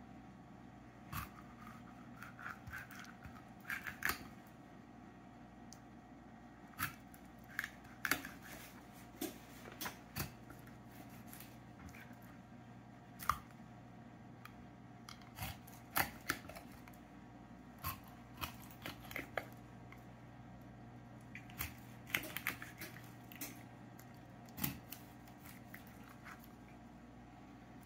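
Kitchen knife scoring slits through scaled American shad on a wooden cutting board: scattered short, sharp clicks and scrapes as the blade cuts through the scaled skin and meets the board.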